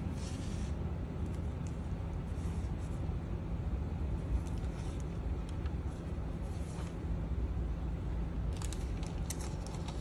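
Paper pages and a fabric tie rustling and scraping in short bursts as a handmade junk journal is opened and its pages turned, with a cluster of rustles near the end. A steady low rumble runs beneath.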